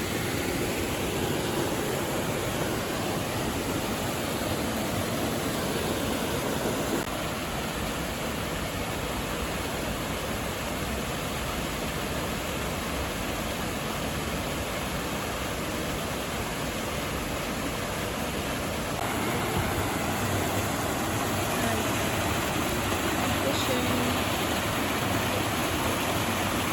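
Waterfall and river water rushing in a steady, even noise, the level shifting slightly about a third of the way in and again later.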